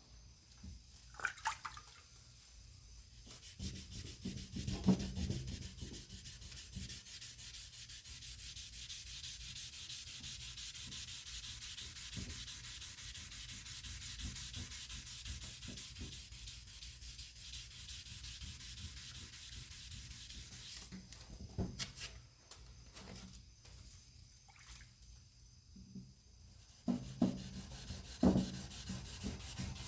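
Sandpaper rubbing over the paint of a 1957 Chevrolet Bel Air, a steady hiss of sanding strokes, with a few handling knocks about four seconds in and again near the end.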